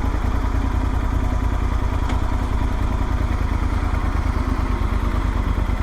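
Motorcycle engine running steadily at low revs, a fast even throb with no revving.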